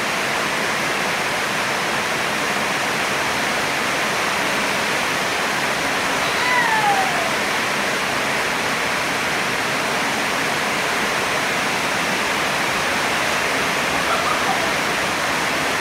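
Steady hiss of heavy rain. A couple of short, high, falling squeaks from the monkey come about halfway through and again near the end.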